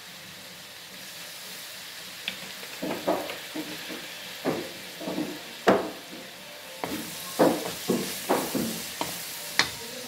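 Wooden spatula stirring and scraping meat, garlic and onion around a metal wok, in irregular strokes starting about two seconds in, over a steady sizzle as soy sauce goes into the hot oil.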